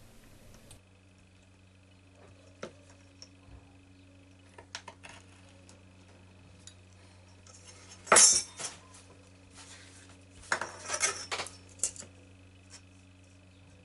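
A knife blade drawn along a steel rule to trim leather: scattered light metal clicks and scrapes, with a louder stroke about eight seconds in and another cluster of scraping strokes about eleven seconds in.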